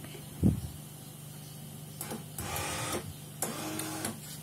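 A low thump about half a second in, then the small DC motor of a homemade relay-logic touchless soap dispenser whirs twice, about a second each: the linkage pressing the soap bottle's pump down, then reversing to lift back to its limit position.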